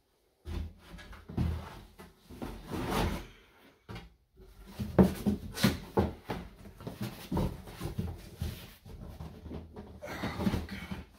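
A cardboard box being handled: a plastic bag is stuffed into it, the flaps are folded down and the box is picked up. It makes irregular rustling, scraping and a series of knocks and bumps, over a steady low hum.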